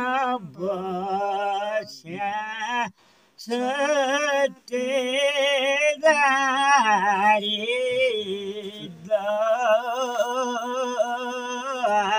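A man's voice singing a Nepali village folk song unaccompanied, in long held phrases with a wavering, ornamented pitch, broken by two short breaks for breath in the first five seconds.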